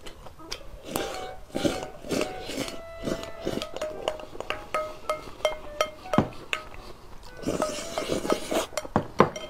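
Spoon clinking and scraping against a glass bowl, with close-up eating sounds as the last of the food is spooned into the mouth. Light background music of short, stepping notes plays under it.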